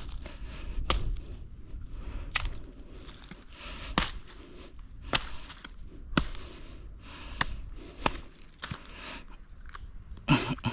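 A series of sharp chopping or cracking strikes, about eight in all, coming roughly once a second.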